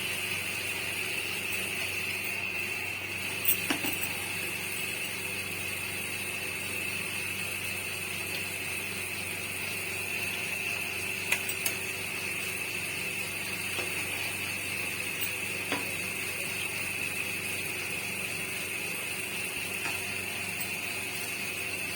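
Rikwach slices sizzling steadily as they deep-fry in hot oil, with a few sharp clicks of a utensil against the pan.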